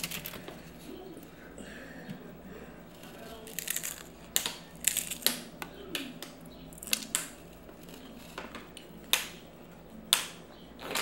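Crunching of a hard corn taco shell being bitten and chewed close to the microphone: a string of irregular sharp crunches, starting a few seconds in.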